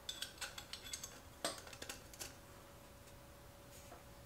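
A quick run of light clicks and taps from small fork parts being handled, the upper slider bushing going onto the inverted fork's tube, over a faint steady hum; the clicking stops after about two and a half seconds.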